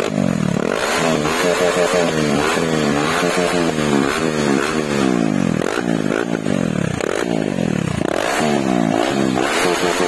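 KTM Duke 250 BS4 single-cylinder engine, running with its exhaust removed, revved repeatedly while standing: a quick blip roughly every second, each rising and falling in pitch. Very loud and sharp on the ears.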